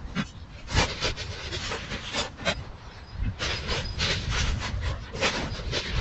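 An animal sniffing or breathing close to the trail camera's microphone: a run of short, noisy sniffs at an uneven pace.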